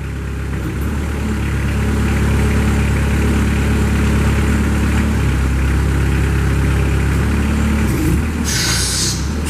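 Kubota diesel engine of a Moffett M55.4 truck-mounted forklift running under hydraulic load as the mast tilts and side-shifts. Its drone builds over the first two seconds, holds steady, and eases off near the end, where a short hiss follows.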